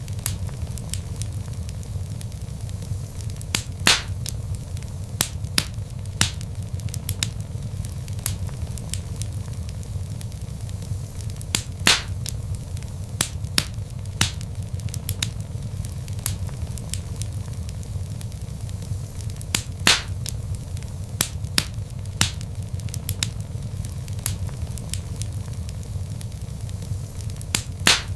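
Wood fire in a fireplace crackling, with a steady low rumble of burning logs under many small sharp crackles. A few louder pops stand out, about every eight seconds.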